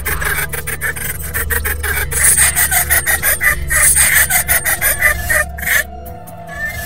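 A ghostly old woman's harsh, raspy cackling laugh as a horror sound effect, a fast rattle of pulses over a low droning hum. It breaks off near the end.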